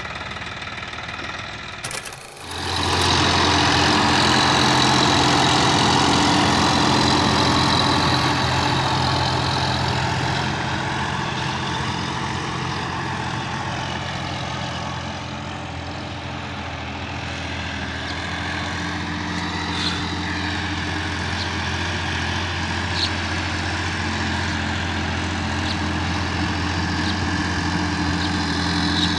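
Sonalika DI 50 RX tractor's diesel engine running steadily under load while its rear rotary tiller churns dry soil. There is a brief break about two seconds in, after which the sound is louder.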